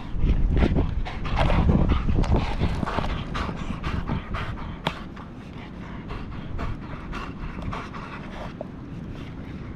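A dog panting, louder in the first few seconds and then steadier, with scattered light clicks.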